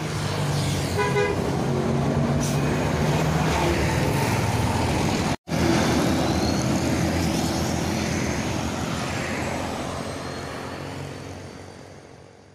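Buses passing on a road, engines running and horns tooting, with a short multi-tone horn toot about a second in. The sound fades out near the end.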